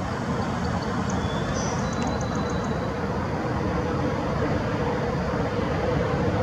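Steady low outdoor rumble, like distant vehicle noise, with a faint humming tone that grows a little stronger near the end and a few faint high chirps about two seconds in.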